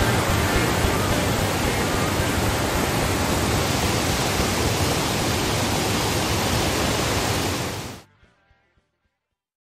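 Steady rushing roar of whitewater rapids, close by, fading out quickly near the end.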